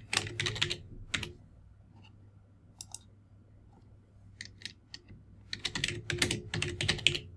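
Typing on a computer keyboard: a quick run of keystrokes, a few scattered keystrokes in the middle, then another quick run near the end.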